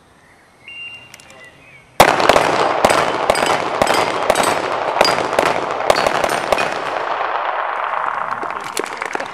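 Two handguns fired in rapid, overlapping strings against steel plate targets, with the steel ringing on hits. A short high beep about a second in, which is the shot timer's start signal; the firing breaks out suddenly about two seconds in and thins out after about seven.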